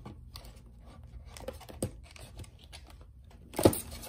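Packs of trading cards being pulled out of a cardboard display box: light scattered taps and rustles, with one louder knock about three and a half seconds in.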